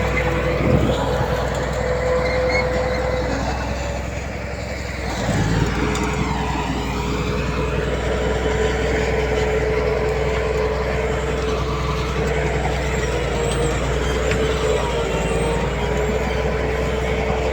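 Heavy diesel earthmoving machinery running steadily, with a steady whine over the engine drone; the sound eases briefly about four seconds in, then picks up again.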